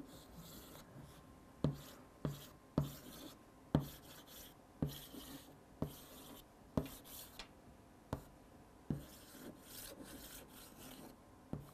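Chalk writing on a chalkboard: a sharp tap at the start of each stroke, followed by short scratchy strokes, about once a second.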